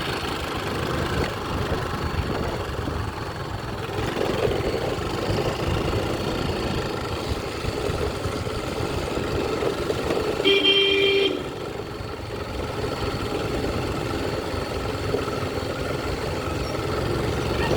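Steady street and traffic noise, with a vehicle horn honking once, briefly, about ten seconds in.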